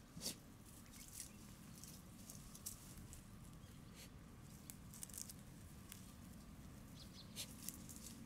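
Faint rustling and scattered soft crackles of Shiba Inu puppies' paws moving through dry grass, over a low steady background rumble.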